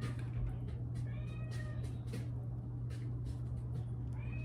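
A domestic cat meowing twice, once about a second in and again near the end, over a steady low hum.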